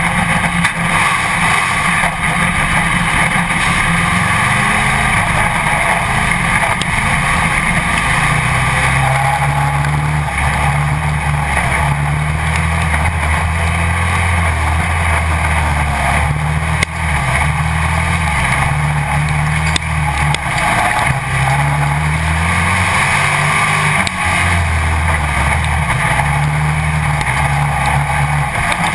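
Pro Stock dirt-track stock car's engine running at racing speed, heard through a camera mounted on its hood. The engine pitch rises and falls over and over as the throttle opens and closes.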